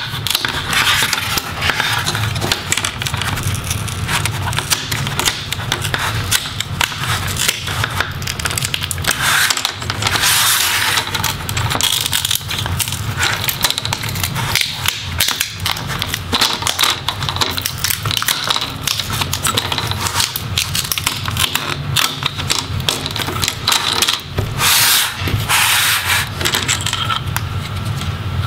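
Plastic display bezel of a Dell Latitude 5580 being pried and peeled off the screen assembly by hand: dense, irregular clicking, crackling and scraping as the bezel comes away from its snap clips and adhesive.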